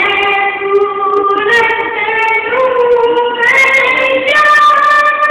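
A boy singing a naat with no instruments, one voice holding long notes that step up and down in pitch.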